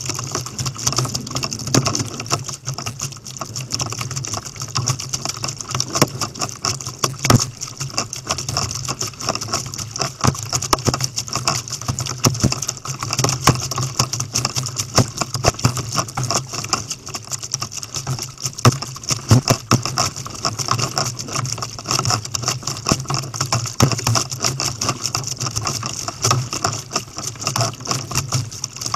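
Kayak paddling at sea: water splashing and slapping against the plastic hull and paddle blades, a dense steady crackle of spray and small waves.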